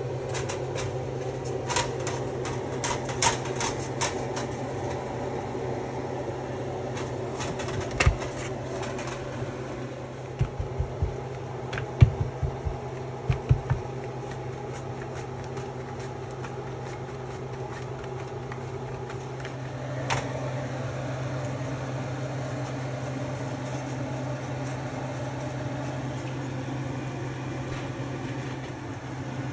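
Steady motor hum, like a running fan, with light knocks and taps scattered over it, most of them near the start and in a cluster about ten to fourteen seconds in.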